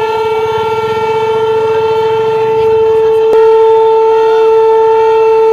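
Several conch shells (shankh) blown together in one long, steady, loud note, with a single click and a small step up in loudness a little past halfway.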